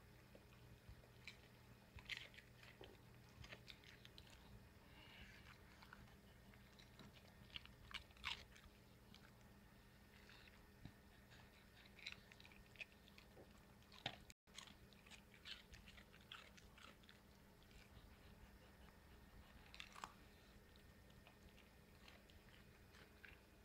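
A Jack Russell terrier crunching and chewing food from a bowl of dry kibble and celery pieces: faint, irregular crisp crunches with a few sharper snaps.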